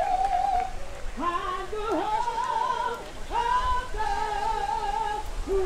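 A woman singing slow, long held notes, each lasting about a second or more and sliding up into pitch at its start, over a steady background hiss.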